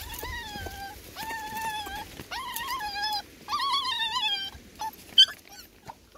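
Young puppies whining: four long, wavering high-pitched whines one after another, then a single sharp click about five seconds in.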